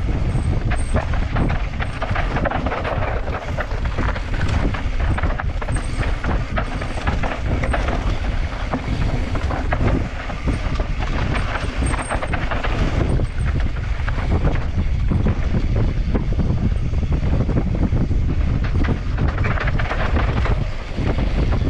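Mountain bike ridden fast down a dry, loose dirt trail: steady tyre noise on the dirt with the bike rattling and knocking over bumps, and a low rumble of wind on the microphone.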